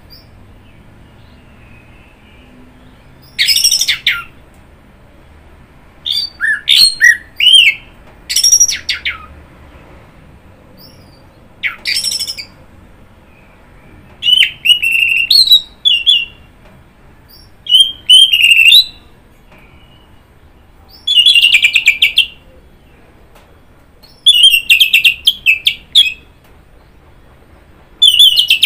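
Orange-headed thrush (anis merah) singing: about nine rich, varied phrases of gliding whistled notes, each a second or so long, separated by short pauses.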